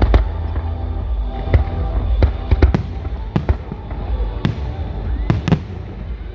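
Fireworks going off: about ten sharp bangs and cracks at irregular intervals, some in quick clusters.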